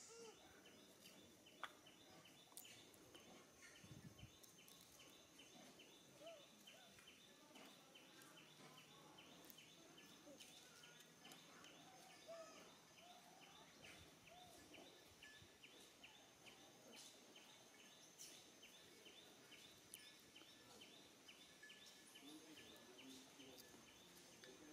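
Near silence: a faint, steady insect chirp pulsing about four times a second, with a few soft high squeaks and faint clicks.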